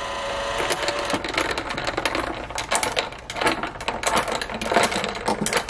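Ice cubes clinking against a drinking glass as a clear straw stirs iced coffee, a quick, irregular run of small clinks.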